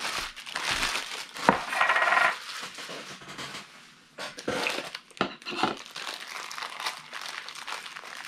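Black plastic bag crinkling and rustling as a vinyl figure is worked out of it, with a couple of sharp clinks from the metal Funko Soda can and lid.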